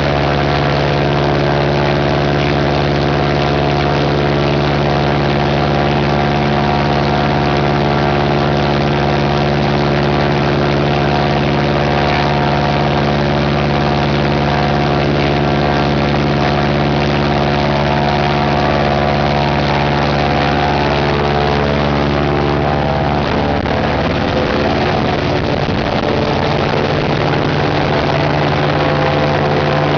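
Jacobs R-755 seven-cylinder, air-cooled radial aircraft engine running loud and steady on a ground-run stand, its propeller turning. The engine note shifts about three-quarters of the way through.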